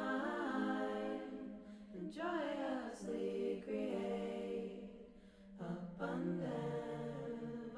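Background music: slow a cappella singing with long held notes and gentle bends in pitch.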